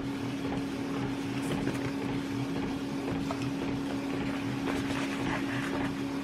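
A steady low machine hum runs throughout, with the faint rustle of a paper label sheet being handled.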